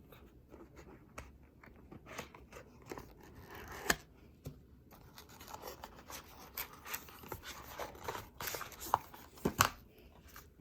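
A product box being opened and its contents handled: rubbing, scraping and scattered clicks and taps, with sharper knocks about four seconds in and again near the end.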